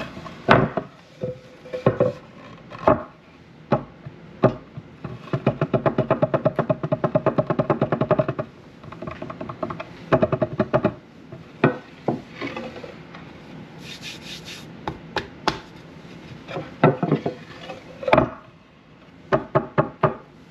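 Knife strokes and knocks on a wooden cutting board, with a quick run of chopping strokes lasting about three seconds, a few seconds in, and scattered single knocks around it.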